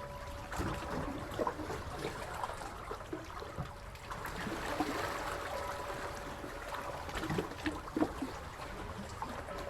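Seawater lapping and trickling, with many small irregular splashes and gurgles over a steady wash.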